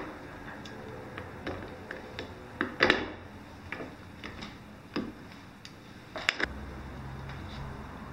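AA batteries being pulled out of the battery compartment of a Megger MFT1730 multifunction tester by hand: a series of small, irregular clicks and knocks, the loudest about three seconds in. The cells are being taken out to reset the tester, which is stuck on an error code and won't switch off.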